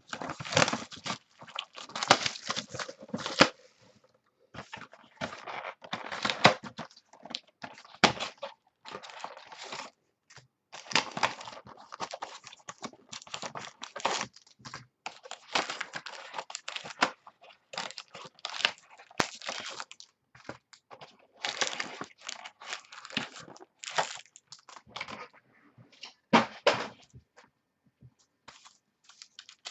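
A sealed box of 2012 Playbook Football trading cards being opened by hand: plastic wrapper and packaging tearing and crinkling, with rustling of cardboard and cards in irregular bursts.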